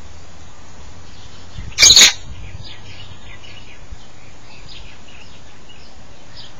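African grey parrot giving one loud, harsh screech lasting under half a second about two seconds in, followed by several faint, short bird chirps.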